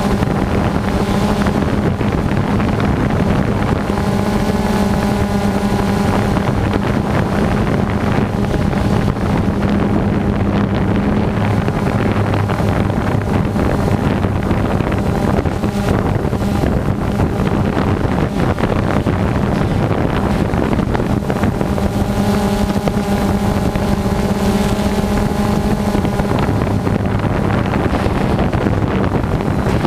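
Small drone's electric motors and propellers buzzing steadily at a fairly high pitch, the hum fading somewhat in the middle and coming back stronger near the end, with wind rushing over the camera's microphone.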